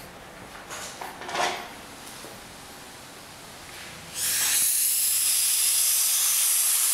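Compressed-air blow gun cutting in with a sudden hiss about four seconds in and blowing steadily, after a faint brief rustle about a second in.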